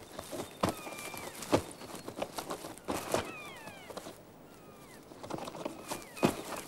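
A kea pecking at and dragging a leather camera lens case over gravel: irregular knocks, clicks and scrapes, the sharpest about one and a half seconds in and again near the end. Thin bird whistles come in over it, a few of them falling in pitch around three seconds in.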